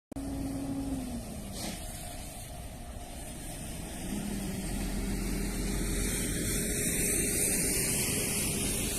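Motor vehicle noise: a low engine hum and a hiss that grows louder towards the end, like traffic passing.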